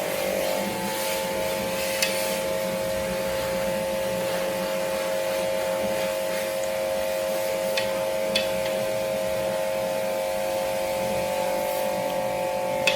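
A motor running steadily at a constant speed, a steady hum, with a few short clicks along the way.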